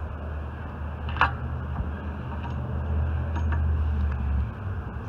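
A sharp metallic clink about a second in, then a few lighter ticks, over a steady low hum that stops shortly before the end.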